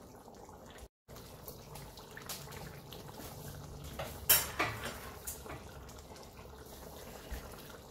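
Pot of chicken and potato curry simmering and bubbling, with a few sharp clicks around the middle, the loudest about four seconds in. A brief silent gap about a second in.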